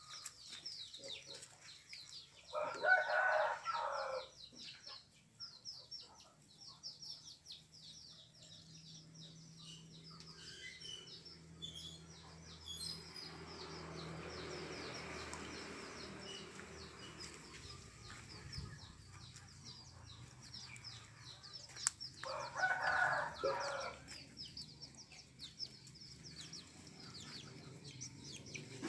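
A rooster crowing twice, once about three seconds in and again near the end, each call about two seconds long, over steady high chirping.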